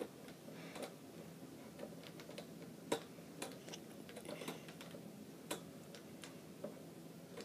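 Faint, irregular clicks and small scrapes of a screwdriver working a screw into a small desk fan's wire grille.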